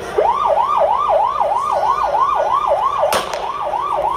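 Vehicle siren in a fast yelp, its pitch sweeping up and down about three times a second. A single sharp crack briefly breaks it about three seconds in.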